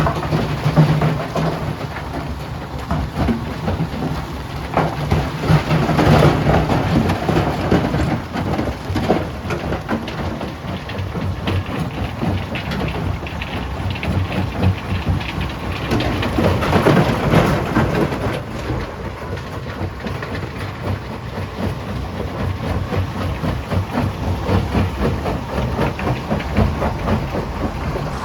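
Stone crusher machinery running and breaking rock: a continuous heavy rumble with a dense crackle and clatter of stone, swelling louder twice.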